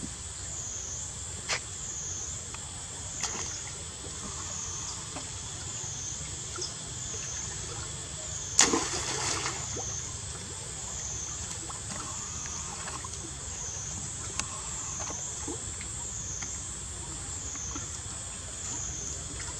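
Macaques splashing as they swim and play in a shallow pool, with a loud splash about eight and a half seconds in that churns on for a second or so, and a few smaller splashes. A steady high whine that wavers about once a second runs underneath.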